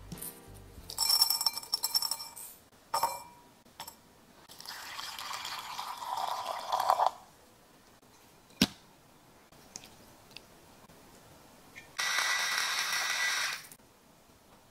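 A stainless steel mixing bowl set down on a stone countertop, ringing briefly with a metallic clatter. Then scattered clicks and rustling as ground pork is added, and near the end a steady hiss lasting about a second and a half.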